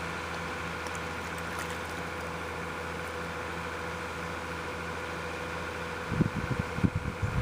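A steady mechanical hum holding several fixed tones, with a cluster of low thumps about six seconds in.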